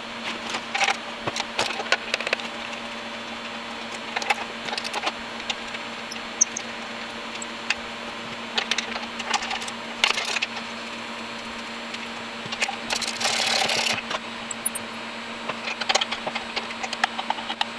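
Hand wrench clicking and clinking on metal in short, irregular bursts as the bolts holding an oil burner's blower motor are undone, with a couple of longer scraping stretches. A steady low hum runs underneath.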